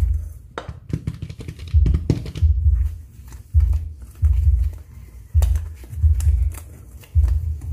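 Wire whisk stirring dry flour mixture in a stainless steel bowl: quick scraping and clicking of the wires against the bowl, with a low thud recurring about once a second.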